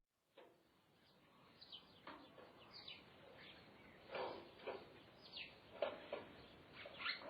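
Birds chirping, short calls that sweep downward in pitch, fading in over the first second and coming more often and louder as it goes on.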